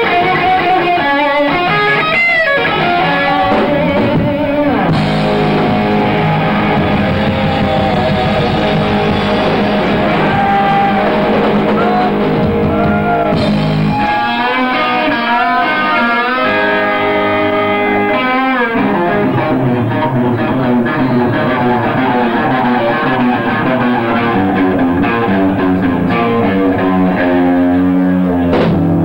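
Live rock band playing loud, led by electric guitar with bending lead lines, with some singing.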